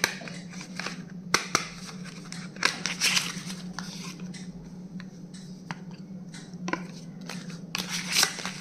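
Stationery packaging being handled and opened by hand: rustling and tearing of wrapping with scattered sharp clicks and taps, over a steady low hum.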